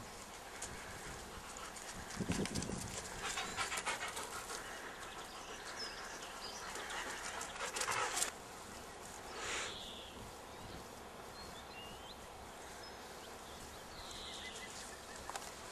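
Belgian Shepherd (Groenendael) dog panting in quick, rhythmic breaths, with a few short noises in between.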